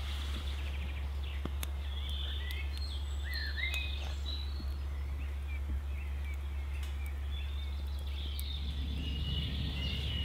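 Birds chirping and singing, with a few sharp crackles from a small wood fire and a steady low hum underneath.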